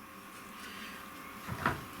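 A short knock about one and a half seconds in, over a faint steady hum.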